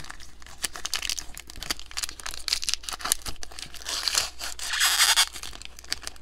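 A Topps Heritage baseball card pack's crinkly wrapper being torn open by hand, crackling and rustling throughout, with one longer, louder tear a little before five seconds in.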